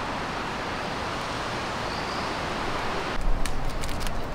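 A steady rushing hiss of outdoor background noise cuts off about three seconds in. It is followed by a quick run of crisp, crinkly clicks as a paper stick packet is torn open.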